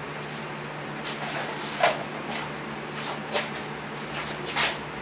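Three short knocks and clunks, about a second and a half apart, as the cabinet panels of a reel-to-reel tape deck are handled, over a steady low hum.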